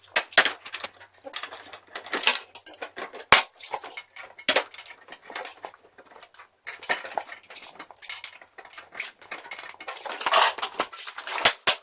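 Irregular metallic clinking and clattering: many sharp clicks and knocks of hard metal objects being handled and knocked together, in clusters with short pauses.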